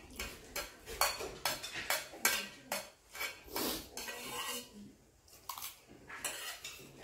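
A metal spoon scraping and clinking against a metal bowl while food is scooped up, in short irregular strokes about three a second, with a brief pause a little past the middle.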